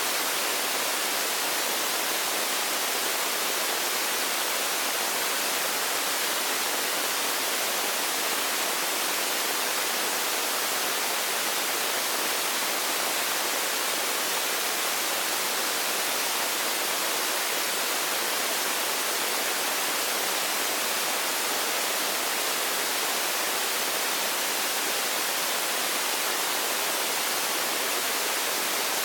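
Loud, steady hiss like static or white noise, even and unchanging, with no tones, clicks or voices in it.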